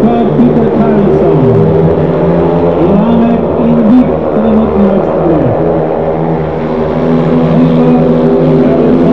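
Several speedway motorcycles racing together, their 500 cc single-cylinder engines running hard. Their engine notes overlap and rise and fall in pitch as the riders go through the bends.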